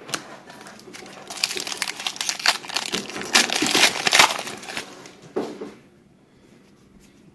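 Foil wrapper of a Prestige football card pack crinkling and tearing as it is pulled open by hand, a dense crackle that is loudest in the middle and stops about six seconds in.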